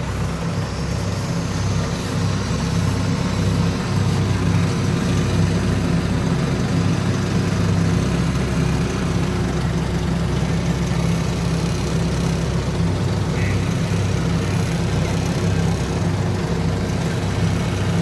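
Kubota PRO688Q combine harvester's diesel engine running steadily.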